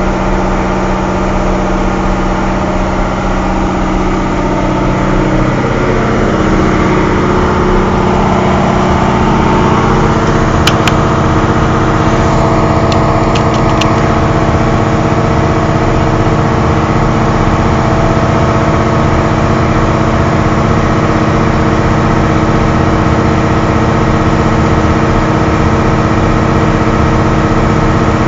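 The twin diesel engines of a Caterpillar 6040 mining excavator run steadily with no fault codes showing. Their speed rises over several seconds, starting about a quarter of the way in, then holds. A few sharp clicks come near the middle.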